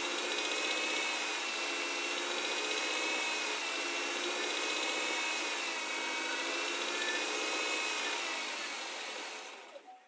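Chevrolet Cobalt engine running steadily while cold, the condition in which the owner reports a knock in the engine. The sound fades out near the end.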